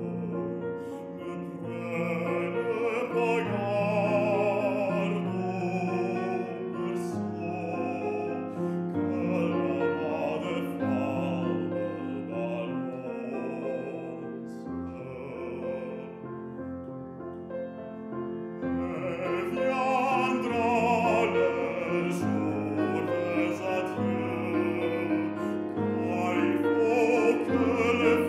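Classical baritone singing an art song with grand piano accompaniment, the voice full of vibrato; the voice drops back for a couple of seconds past the middle while the piano carries on.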